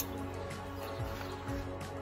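Background music with held, sustained notes.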